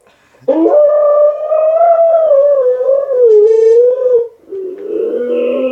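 A person's voice holding one long, wavering note for about four seconds, sliding down a little near the end, as a silly imitation sound; another shorter voiced sound follows near the end.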